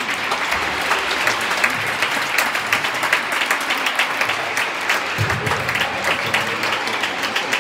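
Audience applauding, many hands clapping together in a steady rush.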